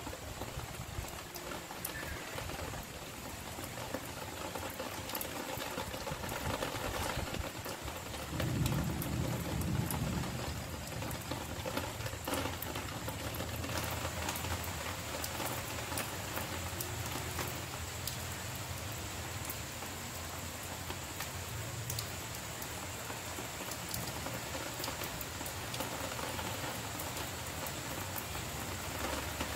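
Light rain falling, the drops ticking faintly over a steady hiss, as the shower eases and nearly stops. A low rumble comes up about eight seconds in and fades over a couple of seconds.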